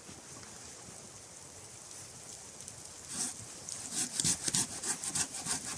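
A blade working wood in quick, regular rasping strokes, about five a second, starting about four seconds in after a single scrape. Before that, only a faint steady hiss.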